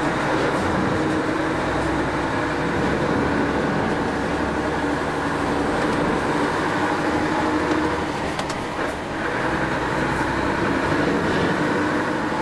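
Mercedes Actros truck heard from inside its cab while driving: a steady diesel engine drone mixed with road and cab rumble.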